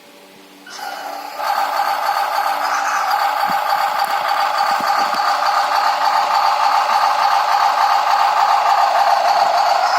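Simulated engine sound from an RC car engine sound-effect module, starting about a second in and then running steadily, with a few faint clicks in the middle.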